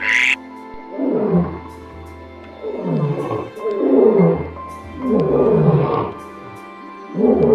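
A large animal's deep calls, about four of them, each falling in pitch, over a steady background of held tones. A short, harsh, high call, like the duck quacks just before, is heard right at the start.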